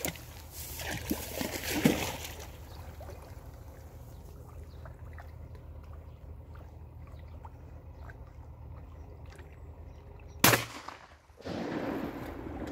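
A Deutsch Drahthaar swimming in a river, with water splashing in the first couple of seconds and then quieter paddling. About ten seconds in comes a single loud, sharp bang, followed by a burst of splashing water.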